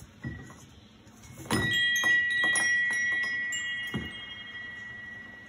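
Chimes ringing: a quick run of irregular strikes starting about a second and a half in, leaving several pitches ringing on and slowly fading. Two soft dull knocks, one near the start and one about four seconds in.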